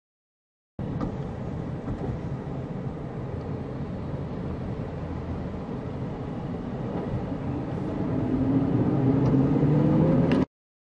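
Car driving in freeway traffic: a steady low rumble of engine and road noise, with an engine note rising in pitch and getting louder over the last few seconds. It starts about a second in and cuts off suddenly near the end.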